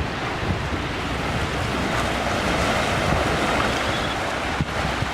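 Pacific Ocean waves washing ashore on the beach, swelling louder in the middle, with wind rumbling on the microphone. A brief knock near the end.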